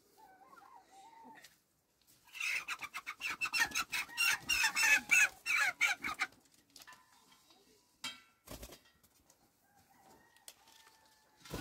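Chicken clucking: a faint call at first, then a loud rapid run of short clucks for about four seconds, with a single knock a little later.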